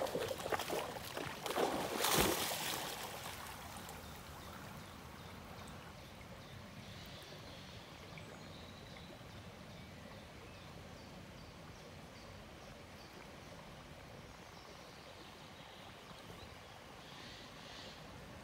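Loud splashing of river water for the first two or three seconds as a Border Collie plunges in from the bank, then a steady low wash of water as the dog swims.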